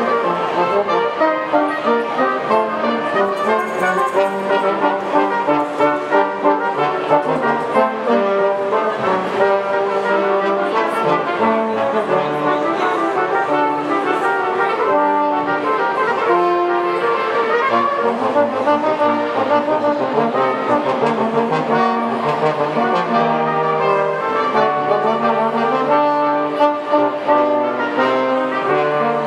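Instrumental music with a brass sound, several parts playing held notes and moving lines together, steady throughout.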